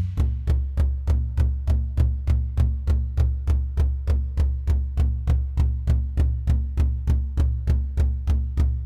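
Nord Drum 3P percussion synthesizer playing a sequenced rhythm: an even run of low, pitched drum hits, each with a short click, about four a second, with no cymbal or snare accents.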